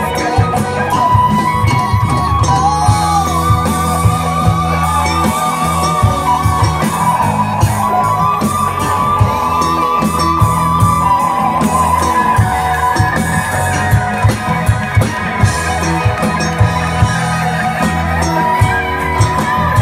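Live band playing a slow groove: drums keep a steady beat under bass and electric guitar, while a bowed violin carries a wavering melody on top.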